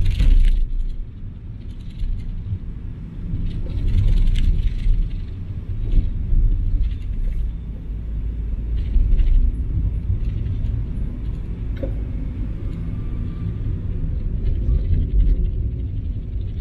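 A car driving, heard from inside the cabin as a steady low rumble of engine and road noise, with a short burst of noise at the very start.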